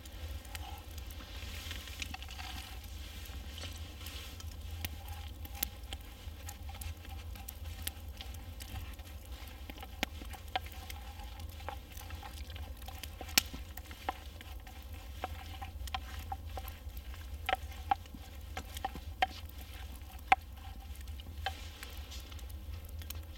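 Nuts being stirred in a frying pan with a wooden spoon over a campfire, caramelising in honey: light scraping and faint sizzling, with irregular sharp clicks and taps.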